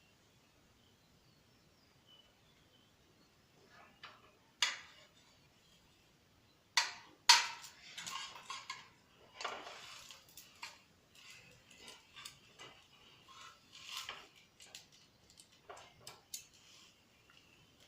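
Spatula knocking and scraping against a frying pan while a filled crepe is turned and rolled in it. A few sharp clicks come about 4 to 7 seconds in, the loudest near 7 seconds, followed by about nine seconds of scraping and light taps.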